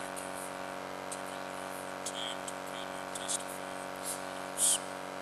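Steady background hum with a few short, faint clicks and hisses. The loudest comes near the end.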